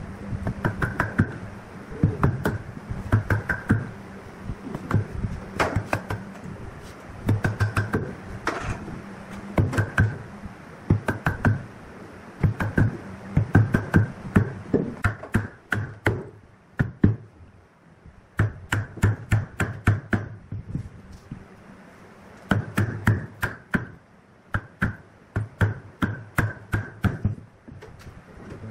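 Wood chisel struck with a wooden mallet, chopping a hole into a solid wood block: runs of quick sharp knocks, several a second, broken by short pauses.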